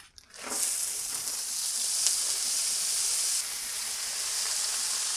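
Frozen mixed vegetables hitting a hot oiled Blackstone steel griddle and sizzling, a steady frying hiss that starts suddenly about half a second in.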